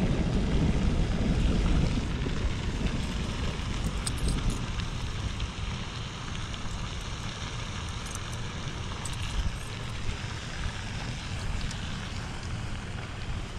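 Gusty wind buffeting the microphone ahead of a rainstorm: a low rumble that is strongest for the first five seconds or so, then eases to a steadier rush.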